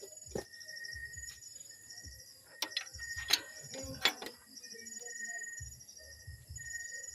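A few sharp metallic clicks and clinks of hand tools on the engine while the timing chain is being set, the two loudest about three and four seconds in. Underneath, a steady background of insects chirping in a fast repeating pulse.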